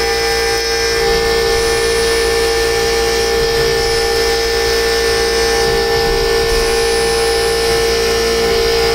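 CNC router spindle at 24,000 rpm driving a 6 mm single-flute end mill through aluminium on an adaptive roughing pass: a steady, high-pitched cutting whine with a constant pitch.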